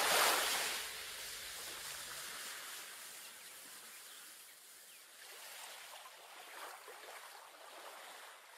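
Ocean waves washing on a shore, loudest at the start as the song's last low note dies away, then fading to soft swells of surf that come and go several times near the end.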